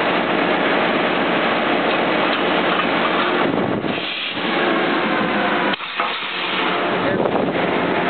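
EMD F7 diesel locomotive with a 16-cylinder two-stroke engine, running close by as it separates from a passenger car: a dense, steady noise. It dips briefly about four seconds in, and a sharp knock comes just before six seconds.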